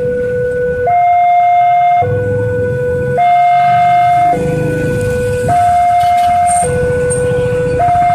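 Railway level-crossing warning alarm sounding a steady two-tone siren, a lower and a higher note taking turns about every second, for a full low-high cycle a little over every two seconds.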